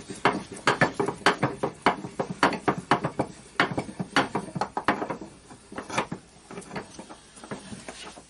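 Hammer blows on a metal punch, driving the armature out of an orbital sander: a rapid run of sharp metallic knocks, several a second, growing fainter over the last few seconds.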